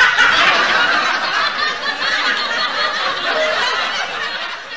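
Laughter, loud at first and fading away near the end.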